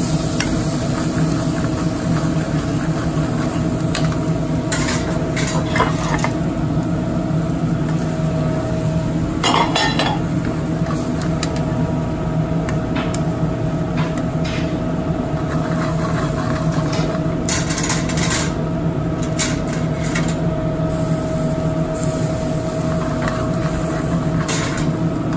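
Metal tongs clinking and scraping against an aluminium sauté pan as hamburger patties are turned in bubbling onion-and-mushroom gravy, in scattered short clanks, the loudest about ten seconds in. Under it runs a steady kitchen hum.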